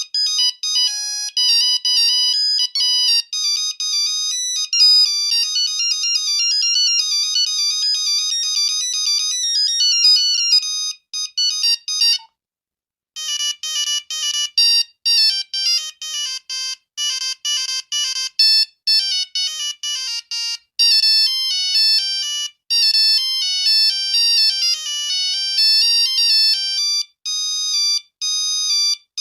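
Nokia 5110 monophonic ringtones playing: a fast, buzzy single-note beeping melody ends about twelve seconds in, and after a second's silence another ringtone melody starts.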